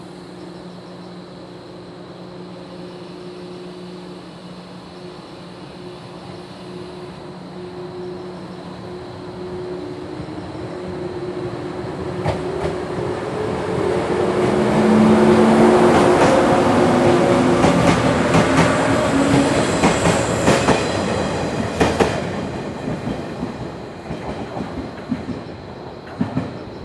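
Local electric multiple-unit train pulling out of a station. A steady hum at first gives way to a motor whine that rises in pitch as the train accelerates and draws near, getting louder. Its wheels then clack over rail joints as the cars pass, and the sound fades near the end.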